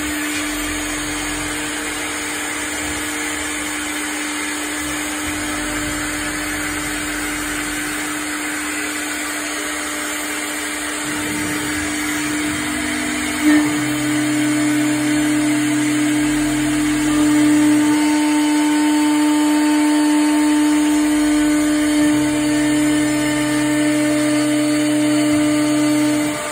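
CNC router spindle cutting 4 mm aluminium sheet: a steady hum at one constant pitch over the hiss of the cut. A sharp click comes about 13 seconds in, and after it the machine runs a little louder.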